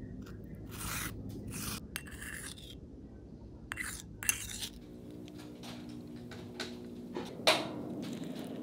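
Spoons scraping and stirring thick wet clay paste in ceramic bowls, in a string of short strokes, with one sharp knock near the end.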